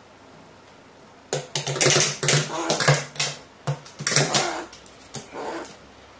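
Rapid clicking and tapping as a crow's beak strikes a wooden stick and the sheet-metal tabletop, in an irregular run of a few seconds, with a person's voice speaking softly underneath.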